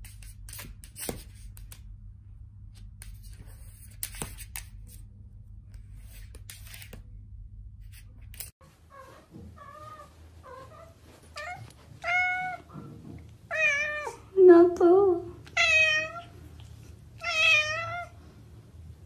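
First a low hum with a few sharp clicks. Then, about halfway in, a domestic cat meows again and again, each call bending in pitch, the meows growing longer and louder toward the end.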